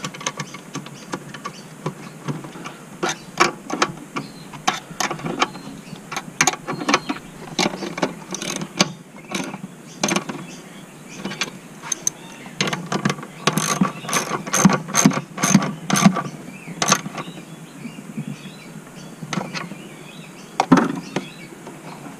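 Hand ratchet clicking in quick runs as it tightens nuts, with short pauses between the runs.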